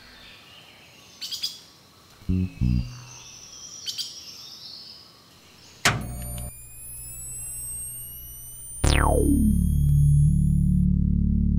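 Jungle ambience of bird chirps with a few low plucked bass notes. About six seconds in, a click and a thin rising electronic whine start. Near nine seconds a whistle swoops down into a loud, steady low machine hum as the cartoon appliance switches on and runs.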